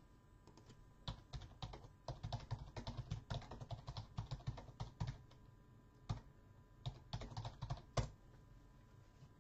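Typing on a computer keyboard: irregular runs of keystrokes, with short pauses, and one sharper, louder keystroke about eight seconds in.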